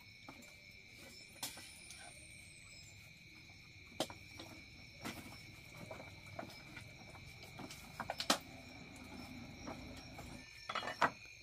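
Steady high-pitched insect chirring, with scattered light clicks and knocks, a quick run of them about eight seconds in and more near the end.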